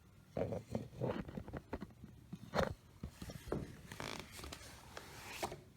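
Scattered light clicks, taps and scraping from small computer hardware being handled, the sharpest click about two and a half seconds in.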